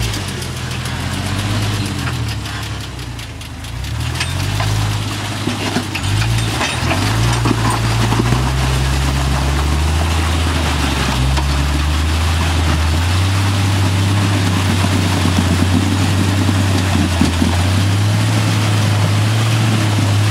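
Jeep engine working at low speed while rock crawling, its revs rising and falling repeatedly, then holding a steadier, slightly louder pitch for the last several seconds.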